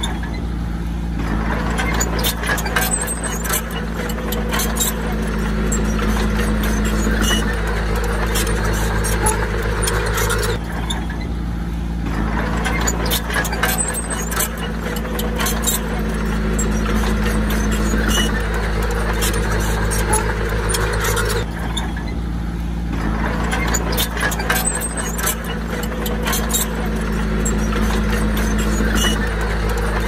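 Diesel engine of a Komatsu D20P crawler bulldozer running steadily under work, with frequent sharp clicks and clanks. The engine note shifts briefly about every ten seconds, near the start, about eleven seconds in and about twenty-two seconds in.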